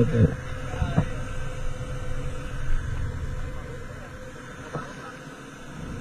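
Low steady rumble that fades after about four seconds, with a thin steady hum throughout and a few brief snatches of voices.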